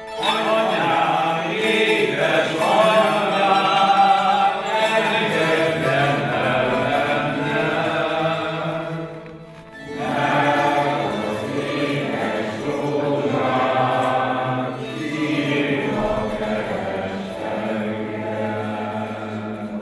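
A group of voices singing a Hungarian folk song together, accompanied by a plucked citera (Hungarian zither), with a brief pause between lines about halfway through.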